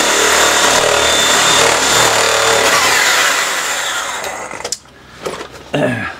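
Traxxas E-Revo RC truck's electric motor and drivetrain running flat out with the wheels spinning free in the air, a high whine over loud gear noise, fast enough to balloon the tyres. About three seconds in the throttle is let off and the whine falls in pitch as the wheels spin down to a stop, followed by a few light knocks near the end.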